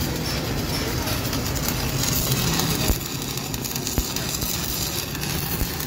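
Stick (shielded metal) arc welding on a steel beam frame: the arc crackles and hisses steadily, with three sharp clicks.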